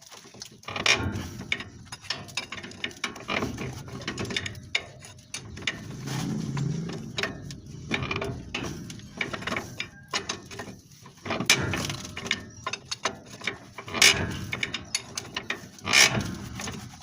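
Metal parts and hand tools being worked on a spring assembly: irregular clicking and rattling, with a sharp knock about a second in and several more in the second half.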